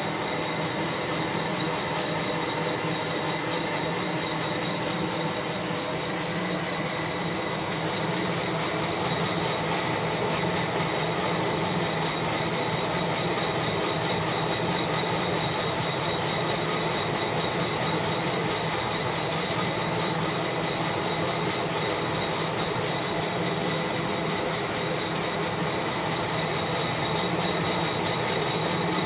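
Fracino Roastilino coffee roaster running, a steady mechanical whir and hiss while the beans churn in its glass roast chamber. It gets a little louder about eight seconds in.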